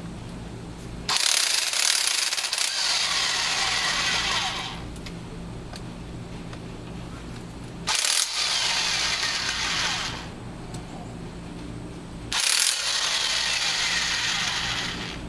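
Impact wrench hammering out the cylinder head bolts of an Oldsmobile 394 V8, in three bursts of about two to three and a half seconds each, with a steady low hum between them.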